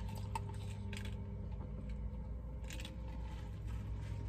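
Quiet, steady low hum of a car cabin with a few faint clicks and light rustles.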